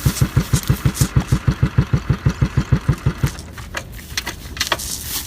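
A small engine idling with an even, rapid thudding beat of about seven pulses a second, which cuts off about three seconds in. A few light clicks follow.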